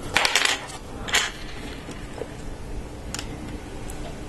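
Plastic LEGO Technic pieces clicking and clattering in the hands as they are picked up and fitted together: a quick cluster of clicks at the start, another about a second in, then a few light ticks.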